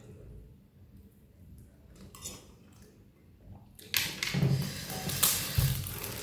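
Handling noise: faint at first, then from about four seconds in a loud run of rustling and clattering as things are moved and handled.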